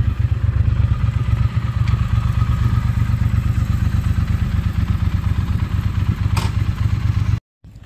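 Triumph parallel-twin motorcycle engine idling steadily with a low pulsing beat, with a single sharp click about six seconds in; the sound cuts off suddenly near the end.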